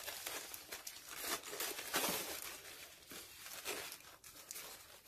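A thin plastic carrier bag crinkling and rustling in irregular bursts as hands handle it and fold it over a kite frame.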